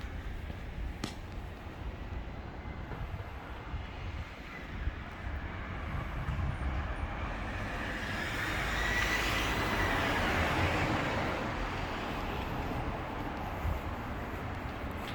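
A vehicle passing by. Its rushing noise swells from about six seconds in, peaks near the middle with a brief high whine, and fades away over a steady low rumble.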